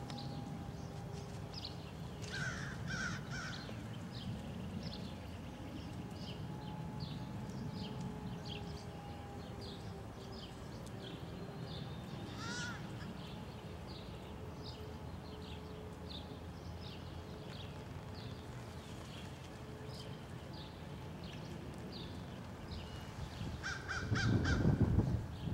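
Crows cawing outdoors: a quick run of three caws about two seconds in, a single call around the middle, and more caws near the end. Faint small-bird chirps and a steady low background hum run underneath, and a louder low rumble comes near the end.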